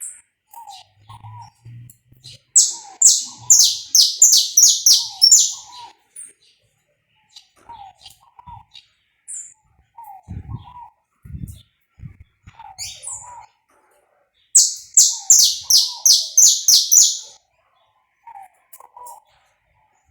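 Saffron finch singing: two loud bursts of about ten rapid, high notes each, one a few seconds in and one near the end. Faint short chirps come about once a second, and a couple of dull knocks fall around the middle.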